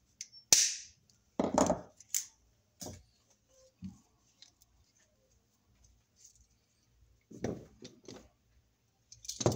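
Wire cutters snipping a plastic cable tie off a coiled electric range cord, one sharp snap about half a second in, followed by several short knocks and rustles as the rubber-jacketed cord is uncoiled and handled.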